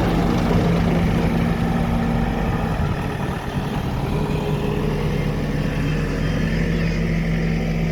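Diesel engine of a JCB 3DX backhoe loader running steadily, with a brief dip in loudness about three and a half seconds in.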